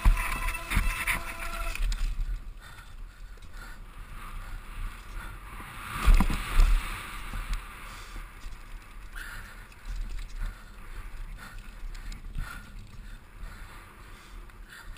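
Mountain bike descending a rough dirt and rock trail: tyres running over dirt and rock, frame and chain rattling, with wind rumble on the helmet camera. A brief squeal sounds at the start, and a heavy knock comes about six seconds in.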